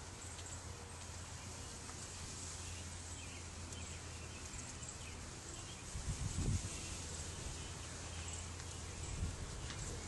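Quiet outdoor ambience: a steady low hum and faint hiss, with a few faint distant bird chirps. A few low thumps about six seconds in and again near the end, as the handheld camera is moved among the branches.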